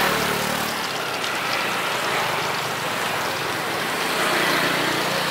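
Steady outdoor street noise with passing traffic; a motor's low hum fades out within the first second.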